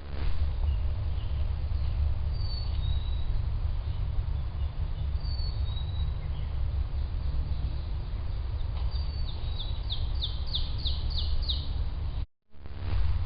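Small wild birds calling over a steady low rumble picked up by a trail camera's microphone: scattered short high chirps, then a quick series of about eight sharp falling notes near the end.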